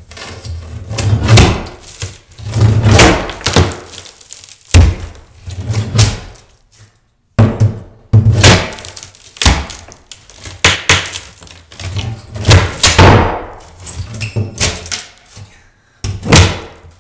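Crowbar prying up particle board underlayment that is glued and ring-shank-nailed down: a series of about a dozen loud cracks and thuds as the board splits and breaks off in chunks.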